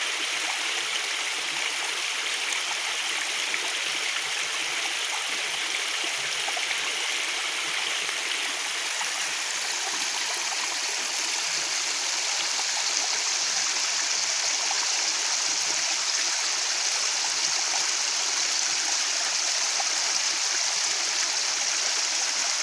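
Waterfall: a steady, even rush of falling water that grows a little brighter and louder about halfway through.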